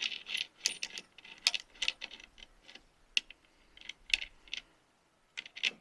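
A wrench working the side bolts on an Andersen Ultimate fifth-wheel coupler: a series of short, irregular metal clicks and clinks as the bolts are loosened.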